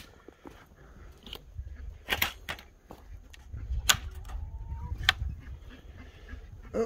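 Footsteps on snow-dusted ground with handheld camera handling, a low rumble of wind on the microphone, and a few sharp clicks. A faint short call is heard about two thirds of the way through.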